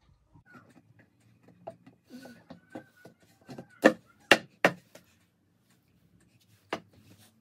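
Flat-pack stand's laminated board panels being handled and fitted together by hand: small scrapes and taps, then three sharp knocks in quick succession about halfway through and one more near the end.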